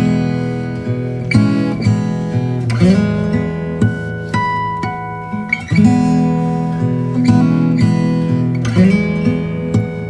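Instrumental passage of a TV drama's opening theme music: plucked string chords, a new chord about every second, with no singing.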